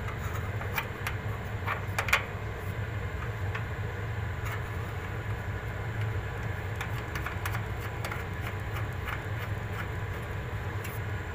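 Scattered small metal clicks and clinks of screws and nuts being fitted to a split AC compressor's mounting bolts, the loudest about two seconds in, over a steady low rumble.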